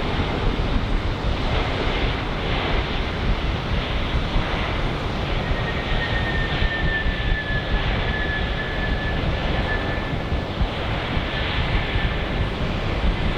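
Jet airliner's engines running loud and steady, a dense rush of jet noise with a faint high whine that comes in about five seconds in and drifts slightly lower.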